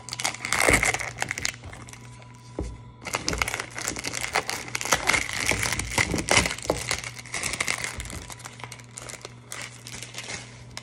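Packaging crinkling and rustling as a perfume box is unwrapped by hand: a burst at the start, then almost continuous from about three seconds in, over a faint steady low hum.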